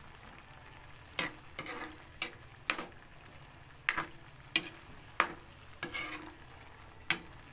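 A spatula stirring pork, shrimp and vegetables in broth in a metal wok, knocking and scraping against the pan about nine times at irregular intervals of roughly half a second to a second.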